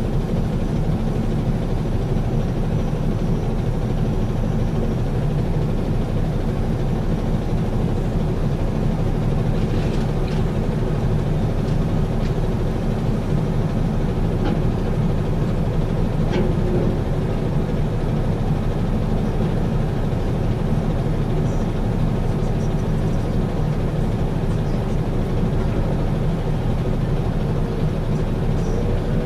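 Diesel engines of a New Holland excavator and a CAT dump truck running steadily under load as the excavator loads the truck, with a few faint knocks midway as a bucket of earth is dumped into the truck bed.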